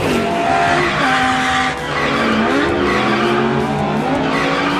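Car sound effects: an engine revving and tyres screeching. They start abruptly, and the engine pitch dips and climbs again about halfway through.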